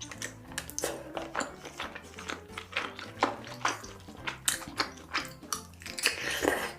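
Close-miked eating sounds: irregular crisp crunches and clicks of chewing, two or three a second, over faint background music.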